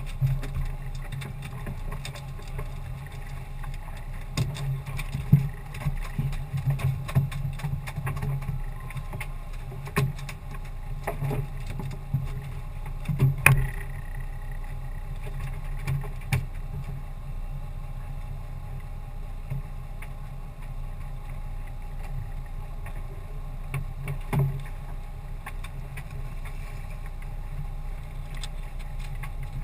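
Small fishing boat at sea with a steady low hum, broken by scattered sharp knocks and thumps as handlines are worked and fish are brought aboard. The loudest knock comes about 13 seconds in.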